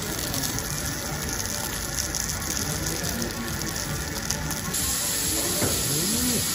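Food sizzling on hot cast-iron steak plates, a steady hiss over faint background music; a little over two-thirds of the way in, the hiss turns brighter and more even as it changes to a steak with butter melting on its iron plate.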